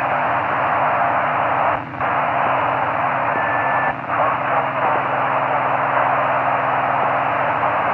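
Open-channel hiss from the AO-92 (Fox-1D) FM satellite downlink on 145 MHz, heard through the receiver with no station talking. The hiss drops out briefly twice, about two and four seconds in, and a short steady whistle sounds around the middle.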